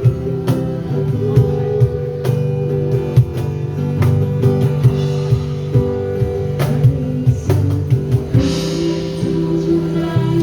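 Live band playing an instrumental passage: electric or acoustic guitar chords over a steady drum-kit beat, with a cymbal wash about eight seconds in.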